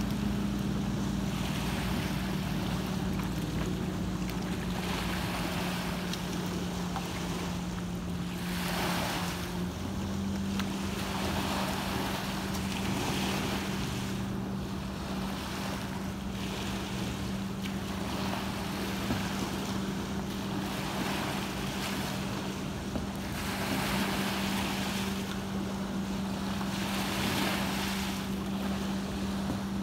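Small lake waves washing and breaking on a sandy shore, swelling every two to three seconds, with wind on the microphone. Under it runs a steady low hum that shifts slightly in pitch about ten seconds in.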